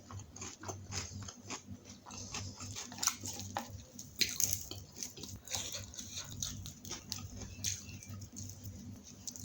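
Close-miked chewing and biting of a person eating: a dense run of short mouth clicks and smacks.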